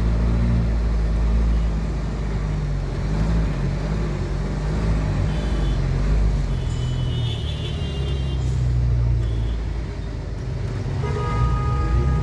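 Steady engine rumble and road noise from riding in city traffic. Vehicle horns sound briefly in the middle, and a longer horn sounds about a second before the end.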